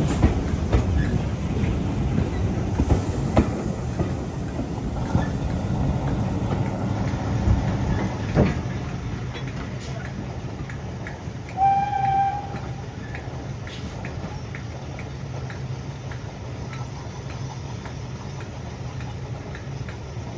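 Train running on rails: wheels clicking over the rail joints above a steady low rumble, the clicking thinning out and fading after about eight seconds. A short pitched tone sounds once about twelve seconds in.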